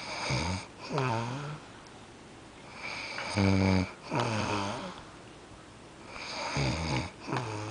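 A man snoring loudly while passed out: a deep snore about every three seconds, each followed by a breath that slides down in pitch.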